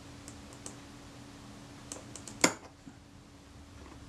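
Small metallic clicks of steel tweezers working a spring into a camera's leaf-shutter mechanism, with one sharp, ringing snap about two and a half seconds in. A faint steady hum runs underneath.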